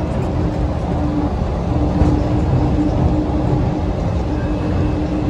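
DFW Skylink automated people-mover train running, heard from inside the car: a steady low rumble with a steady motor hum that drops in and out.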